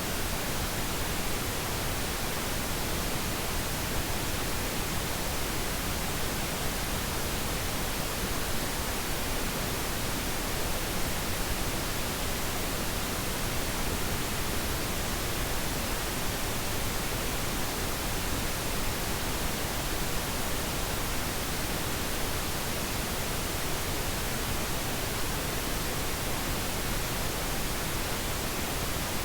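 Steady pink noise: an even, unbroken hiss-like rush across the whole range, played as a sleep aid for babies.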